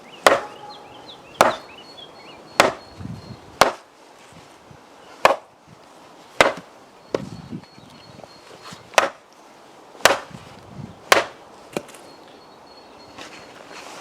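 About eleven hard wooden whacks, roughly one a second: a wooden stick is used as a baton to beat a small log section and split it along a half-depth saw cut.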